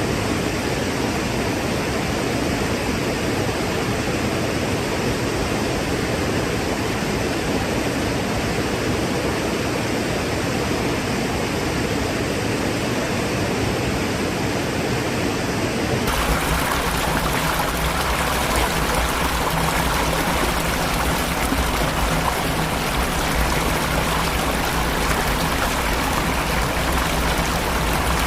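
Rushing water of a waterfall, a steady loud wash; a little over halfway through it cuts abruptly to a different recording of falling water with a deeper rumble.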